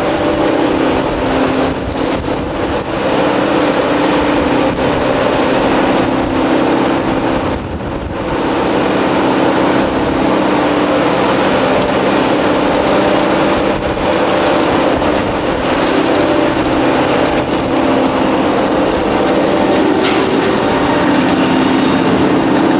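A small pellet production line running, with the ELF Systems Pellet Mill 772 press, conveyor and cooling fans together giving a loud, steady machine drone with several held tones.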